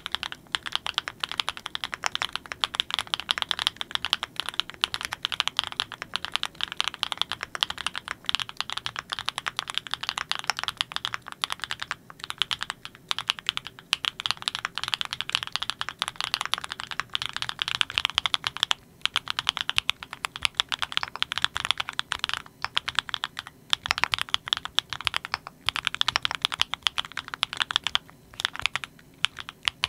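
Steady fast typing on a Klein Mont Cervin custom mechanical keyboard with factory-lubed Kinetic Labs Candy Vanilla switches: a dense run of crisp key clacks, broken by a few short pauses.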